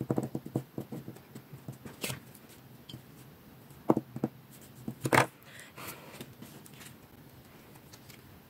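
Small craft scissors snipping paper into tiny bits, a quick run of several snips a second that dies away about a second and a half in. A few louder separate clicks and a short rustle follow, the loudest around the middle.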